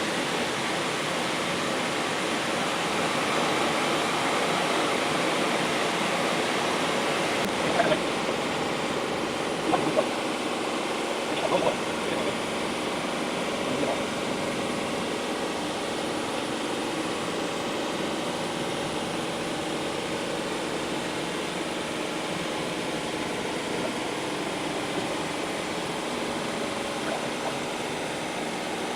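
Several backpacking stoves burning at once, among them pressurized gas canister burners such as a Jetboil: a steady rushing hiss of burner flames under pots of water being heated to the boil. A few brief louder sounds stand out from about 8 to 14 seconds in.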